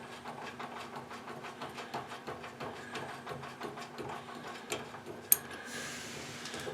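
Rapid, evenly spaced mechanical clicking, about five clicks a second, with one sharper click about five seconds in.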